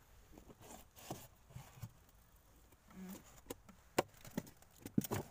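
Scattered knocks and clatter of gear being handled in the hull of a small boat, with the sharpest knocks about four seconds in and in a quick cluster near the end.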